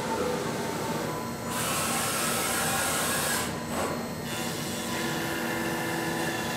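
Five-axis CNC milling machine's spindle running and its end mill cutting a laminated katsura wood block. A loud hiss starts about one and a half seconds in and stops about two seconds later, over a steady machine drone.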